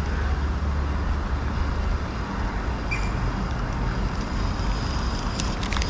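Road traffic: a steady rushing noise with a low rumble that fades about two seconds in, and a few light clicks near the end.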